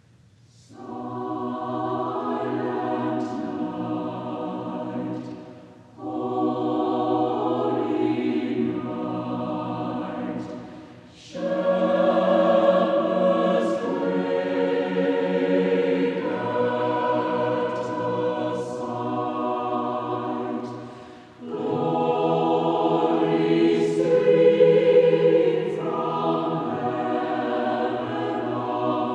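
Choral music: a choir singing slow, held chords in long phrases, with brief breaks between phrases.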